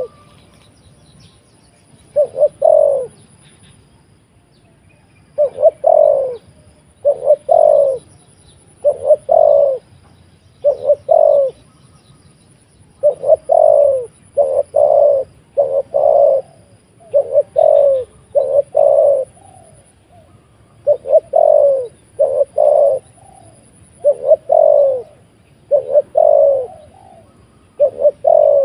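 A dove cooing loudly and close by: low, falling coo notes given in quick groups of two or three, repeated every second or two.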